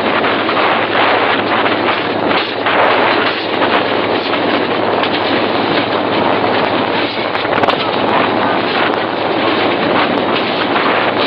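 Metre-gauge passenger train running at speed, heard from the front of the locomotive: a loud, steady rush of running noise.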